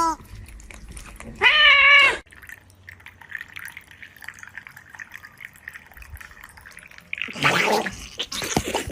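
A pet's single drawn-out pitched call, a whine or meow about a second and a half in. After it comes a faint low noise, then a louder rushing noise near the end.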